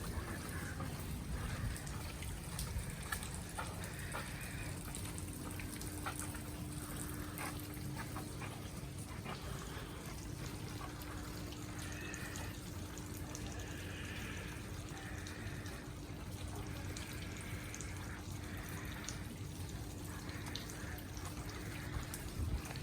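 Wet, snowy street ambience: water trickling and dripping over a steady low rumble, with scattered soft clicks and a faint steady hum that sets in a few seconds in.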